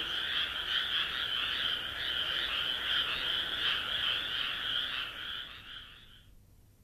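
A chorus of frogs croaking steadily in fast, pulsing trills, fading out near the end.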